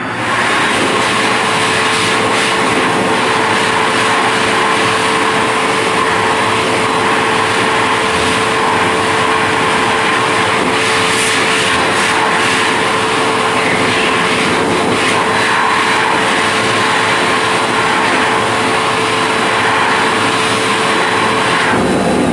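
Wall-mounted electric hand dryer blowing at full power: a loud, steady rush of air with a constant motor hum, switching on suddenly and cutting off near the end.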